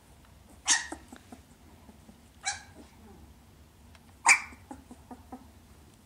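A puppy barking: three short, high barks about two seconds apart, the last the loudest, with faint light ticks between them.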